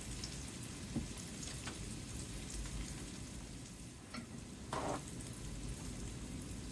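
Tofu pieces frying in sesame oil in a skillet, a steady sizzle with light crackles. A brief louder noise about five seconds in.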